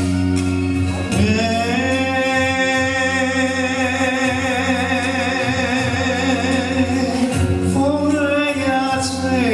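A singer holds one long note with vibrato over steady musical accompaniment, then moves into a short sliding phrase near the end.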